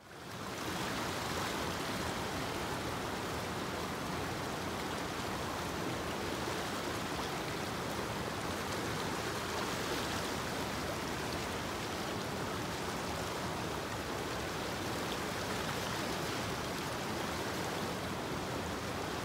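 Small stream's water rushing steadily, fading in at the very start.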